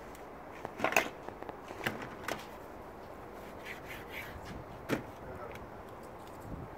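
A few sharp knocks of a kitchen knife against a wooden cutting board while raw chicken is cut up, the loudest about a second in and another near five seconds in.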